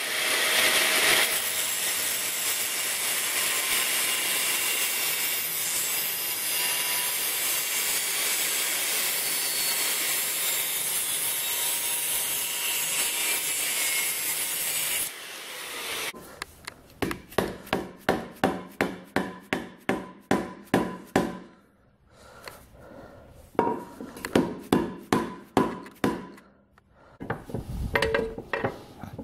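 An angle grinder with a cutting disc slices into a steel motorcycle exhaust pipe, running steadily for about fifteen seconds before it stops. Then a hammer strikes the pipe in a bench vise in quick runs of sharp blows, about two to three a second with short pauses, spreading the cut pipe open.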